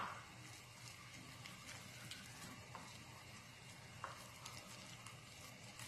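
Faint stirring of a thick chili-powder seasoning paste with a spoon in a bowl: a sharp clink right at the start, then soft scraping and a few light ticks of the spoon against the bowl.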